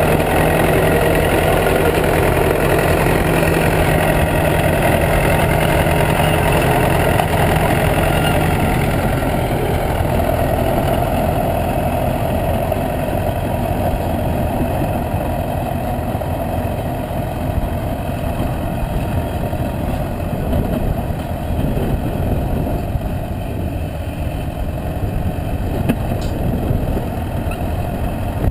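Bulldozer engine running steadily. A pitched drone is strong for the first ten seconds or so and then eases off.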